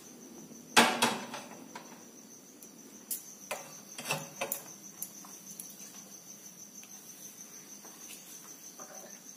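Metal knocks and clatter as an aluminium kadai is handled and set down on a gas stove's burner grate: one sharp loud knock about a second in, then a cluster of lighter knocks a few seconds later. Behind it, a steady high-pitched cricket trill.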